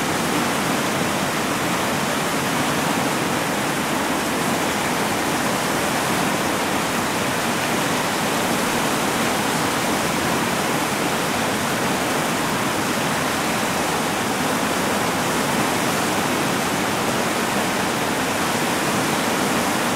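Whitewater rapids rushing steadily: an even wash of water noise with no distinct splashes or strokes standing out.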